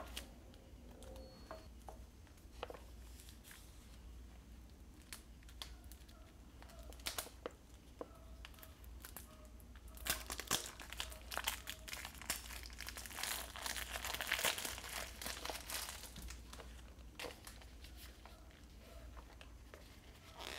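Plastic shrink wrap being peeled and crinkled off a small cardboard toy can, densest and loudest through the middle, with scattered clicks and taps of handling before and after.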